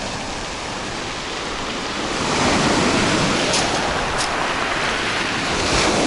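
Sea surf breaking and washing up over a pebble beach, a steady rushing that swells louder about two seconds in as a wave comes in.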